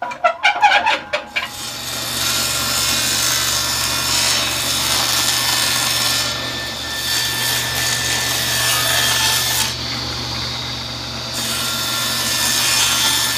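Table saw starting up and then ripping a thin plywood panel, the motor running steadily under the hiss of the blade cutting. The cutting noise thins briefly twice during the cut.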